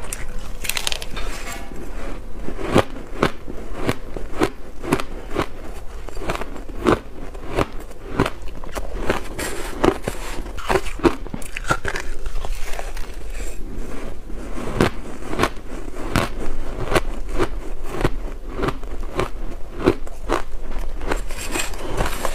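A person biting and chewing mouthfuls of crisp blender-shaved ice close to the microphones: a steady run of sharp crunches and crackles, several a second.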